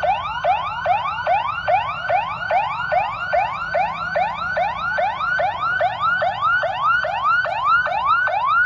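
Police car siren in a fast yelp: a rising whoop that drops back sharply, about two and a half times a second without a break.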